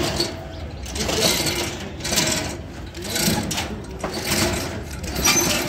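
Corrugated steel roller shutter being raised, its slats rattling in surges about once a second.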